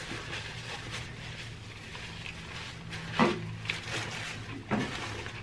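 Faint chewing and mouth noises of people eating fried chicken, over a low steady hum, with two brief louder mouth sounds, one a little past halfway and one near the end.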